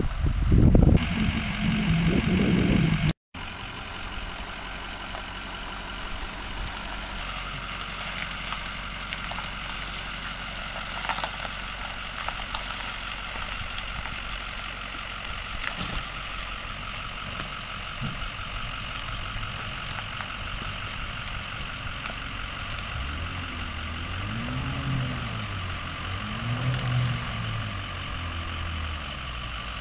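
Loud wind on the microphone for about three seconds, cut off abruptly, then engines idling steadily: the pickup truck's and the jon boat's outboard motor. Near the end the outboard revs up and down twice as the boat pulls away.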